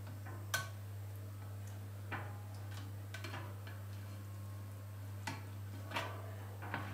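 Spatula and slotted turner clicking and scraping against a ceramic baking dish as a baked stuffed salmon is worked loose from the dish: a handful of scattered sharp clicks, the sharpest about half a second in, over a steady low hum.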